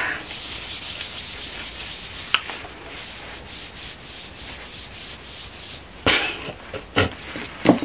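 Hand rubbing and stroking the smooth surface of an iPad box held close, a steady scratchy rubbing. A sharp tick comes about two seconds in, and there are louder scuffs near the end.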